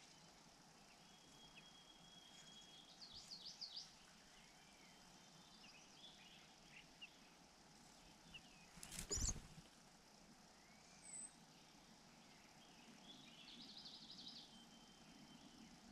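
Faint, high bird chirps and short calls, in small clusters, with one louder rustling knock about nine seconds in.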